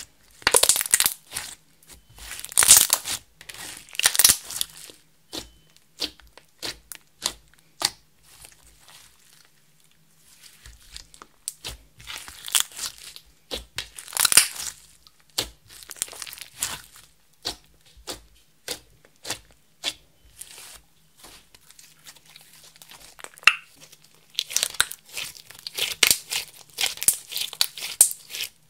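Metallic green slime, clear slime with makeup and glitter mixed in, being kneaded, pressed and squeezed by hand. It gives rapid clicks and crackles in irregular bursts, with quieter spells about ten seconds in and again around twenty seconds.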